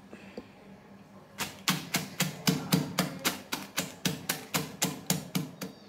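A pestle pounding pieces of hard butterscotch crunch (set caramel with almonds) inside a plastic bag on a counter. It is a steady run of sharp knocks, about four a second, starting about a second and a half in, as the candy is broken into small bits.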